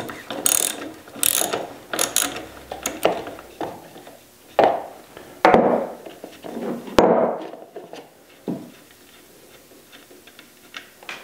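Socket ratchet clicking in repeated short strokes as it loosens the 10 mm oil drain plug on an air compressor's pump crankcase. The clicking gives way to quieter, sparser handling sounds in the last few seconds.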